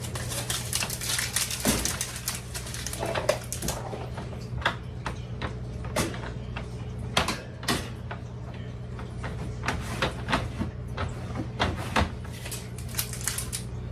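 Irregular clicks, taps and knocks of small items and packaging being handled and sorted, over a steady low hum.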